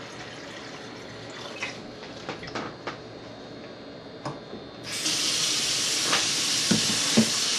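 Kitchen sink faucet turned on about five seconds in, water running steadily from the tap. Before it, only a faint hiss and a few light clicks.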